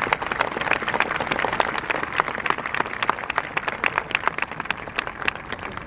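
Stadium crowd applauding, many hands clapping at once, thinning out near the end.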